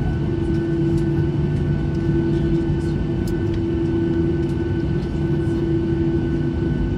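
Steady cabin noise of a Boeing 737-800 airliner taxiing after landing: a deep rumble under the engines' low, even hum, with a few faint rattles.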